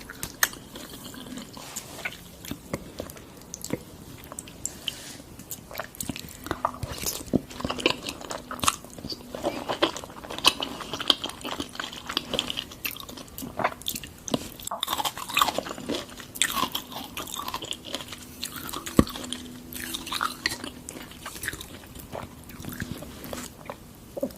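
Raw salmon being bitten and chewed, a steady run of wet clicks and smacks.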